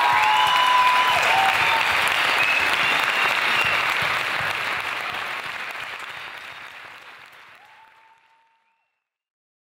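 Theatre audience applauding at the end of a choir performance, fading away to silence about eight seconds in.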